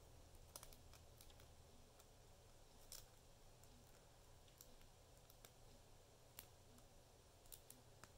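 Near silence with a low steady hum and a few faint, scattered clicks and taps of trading cards being handled and set down.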